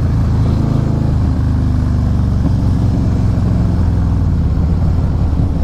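Harley-Davidson Fat Boy S V-twin engine running steadily while riding, its low even note mixed with a hiss of wind.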